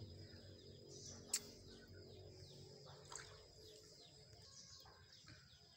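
Near silence with faint bird chirps in the background and a thin steady high tone, broken by one sharp click about a second and a half in.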